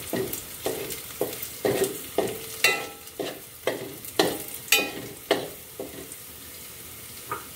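Metal spoon stirring sliced onion and chilli frying in oil in a metal pot, scraping the pan about twice a second over a light sizzle, as crushed chilli is mixed into the tempering. The stirring stops about six seconds in, leaving the sizzle, with one last scrape near the end.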